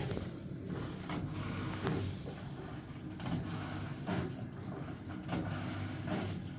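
Washing machine drain pump running with a steady low hum, with short clicks and knocks about once a second; the pump works but the drum is not turning.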